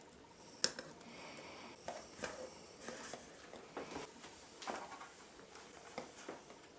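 Quiet kitchen handling noise as bread dough and baking molds are worked: one sharp click about two-thirds of a second in, then scattered soft taps and knocks.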